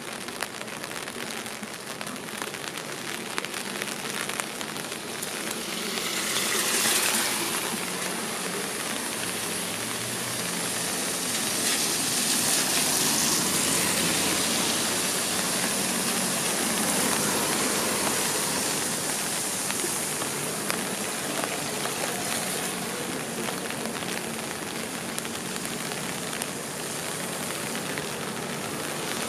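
Steady rain falling on a city street, with many small drop ticks. Passing vehicles hiss on the wet road, one brief swell about seven seconds in and a longer, louder one from about eleven to nineteen seconds in.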